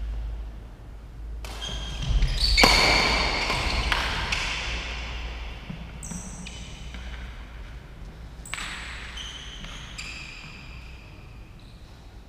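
Badminton racket strikes on a shuttlecock during a doubles rally, a string of sharp hits with short ringing tones, echoing in a large indoor hall; the loudest hit comes about two and a half seconds in.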